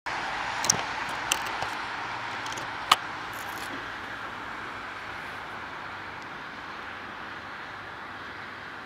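Steady rushing noise of an urban street, slowly fading, with a few sharp clicks in the first three seconds; the loudest click comes about three seconds in.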